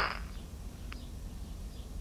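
Small AM transistor radio's speaker giving a short burst of static with a faint whistle as it is tuned off a station, then low hum and hiss between stations, with a faint click about a second in.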